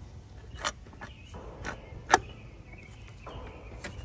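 A few sharp metallic clicks and clinks as a serpentine belt tensioner pulley is worked off its mount on the engine front, the loudest about two seconds in, with brief rustles between them.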